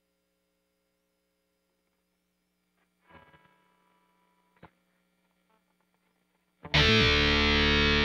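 Electric guitar through heavy distortion. There is only a faint hum at first, then a few quiet notes about three seconds in and a click a little later. Near the end, loud distorted chords and riffing kick in.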